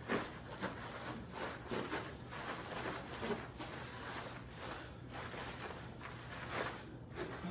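Soft swishes and light thuds of two people's uniforms and bare feet on foam mats as they throw kicks, coming every half-second or so at an uneven pace, over a steady low hum.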